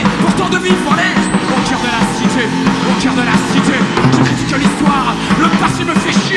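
Punk rock band playing live, loud and steady.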